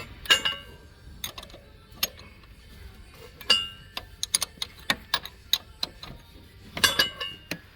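Socket and wrench clinking and clicking against the alternator's bolt and metal housing as they are worked by hand, with irregular small clicks and three sharper metal knocks that ring briefly: one near the start, one midway and one near the end.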